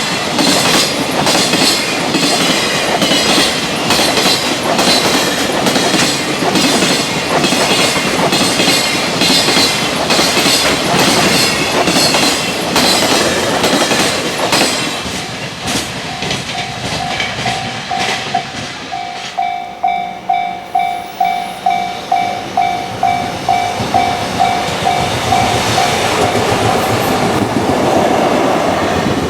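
Freight train passing at speed, its wheels clacking in quick rhythm over the rail joints. As the train clears, about halfway through, a level crossing warning bell rings in an even series of strokes, a little over two a second. The rumble of rolling wheels builds again near the end.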